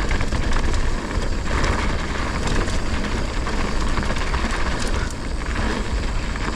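Mountain bike descending a dirt trail: tyres rolling over dirt and rocks, wind buffeting the mic, and the bike clattering over bumps.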